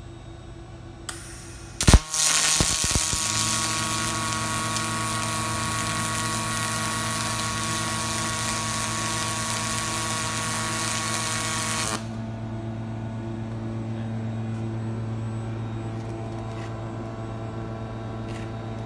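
Robotic pulsed MIG welding arc: a sharp crack as the arc strikes about two seconds in, then about ten seconds of steady buzzing hiss with a pitched hum that cuts off suddenly when the weld ends. A lower steady hum carries on afterwards.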